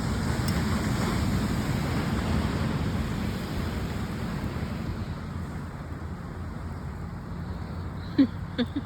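Shore surf washing in, with wind buffeting the phone microphone in a steady low rush. A few short pitched sounds come in near the end.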